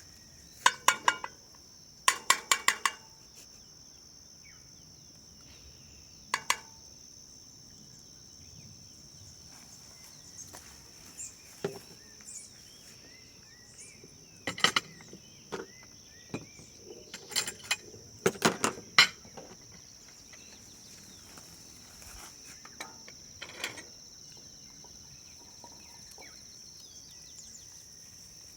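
Short runs of sharp clinks and taps of cooking utensils against cookware, heaviest a few seconds either side of the middle. A steady high insect trill runs underneath.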